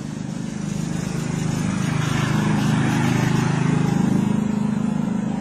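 A motor engine running, a low pulsing hum that grows louder through the middle and eases toward the end.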